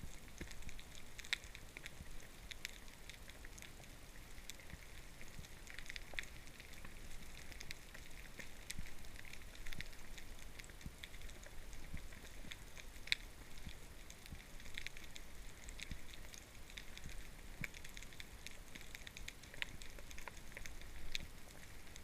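Underwater crackling with many irregular sharp clicks, picked up by a camera under the sea.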